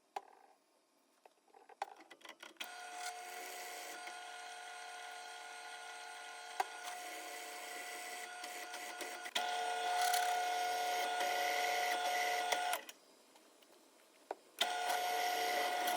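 A small electric motor running with a steady whine for about ten seconds, getting louder partway through, then stopping and starting again near the end.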